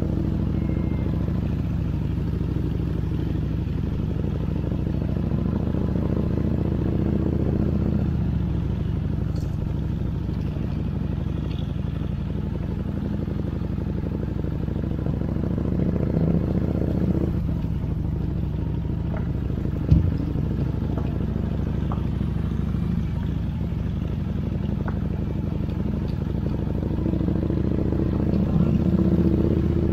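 Motorcycle engine running steadily under way, a low even hum that swells slightly near the end, with a single sharp knock about twenty seconds in.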